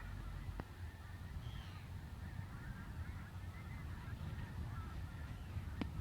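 A large flock of birds calling together: a continuous chatter of many overlapping calls.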